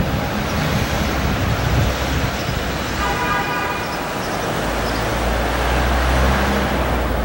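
Wind buffeting the camcorder microphone in low gusts over a steady outdoor rushing noise, with a brief pitched whine about three seconds in.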